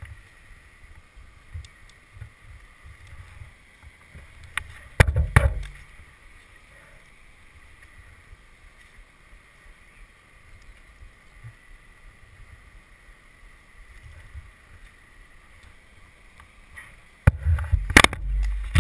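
Climbing rope and hardware being handled close to a helmet-mounted microphone: low rustling and small knocks over a faint steady whine, with two louder bouts of knocking and rubbing about five seconds in and near the end.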